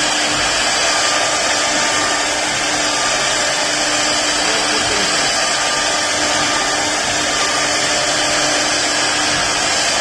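Woodworking CNC router running steadily: a continuous whirring rush from the spindle and cutter, with a faint steady whine.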